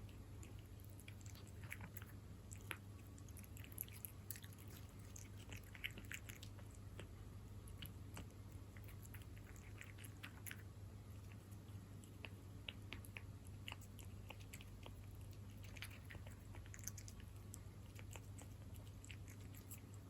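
A cat chewing wet food, chicken in jelly: faint, irregular wet clicks and smacks of its mouth and teeth, over a steady low hum.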